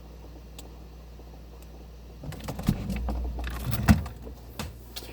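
A low steady hum inside a closed refrigerator, then from about two seconds in the fridge door is opened and things inside rattle and bump as the camera is handled, with a sharp knock near four seconds.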